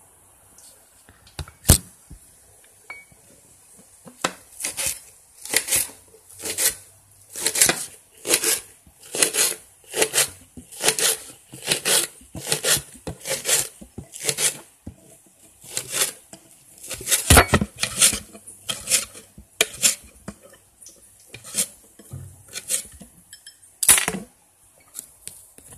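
A metal utensil knocking and scraping on a dish in a long series of sharp strokes, about one to two a second, starting with a single loud knock near the start.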